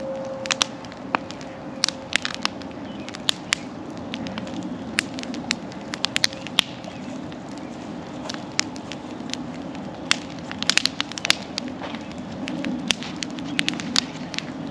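Wood bonfire burning, crackling with irregular sharp pops over the steady low rush of the flames.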